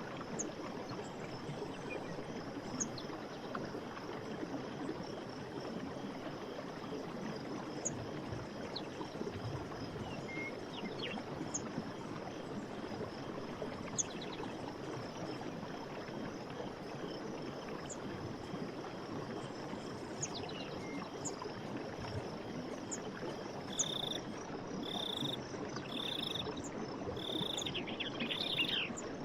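Running stream flowing steadily, with scattered short bird chirps. Near the end a bird calls five short high notes about a second apart, closing with a quick falling trill.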